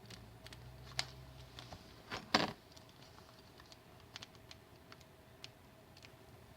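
Scattered small plastic clicks and taps from handling a computer mouse and its small parts, with one louder short clatter about two seconds in.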